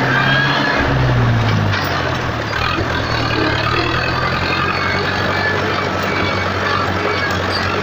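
Massey Ferguson 275 tractor's diesel engine running through a new exhaust muffler. About a second in, the engine speed drops, and it then runs steadily at the lower speed.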